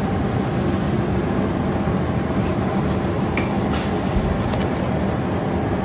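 A long-haired black cat purring steadily and loudly right up against the microphone, with a few light clicks over the purr past the middle.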